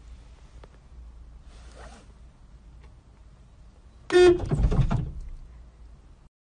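A car horn honks once, briefly, about four seconds in, over a low steady hum inside the car.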